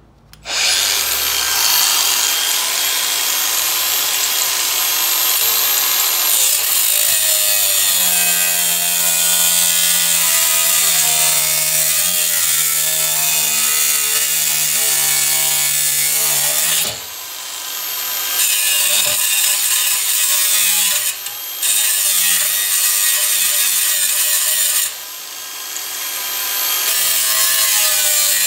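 Makita angle grinder with a thin cut-off wheel, starting suddenly with a high whine and then cutting through rusty steel angle clamped in a vise. It eases off a few times in the second half.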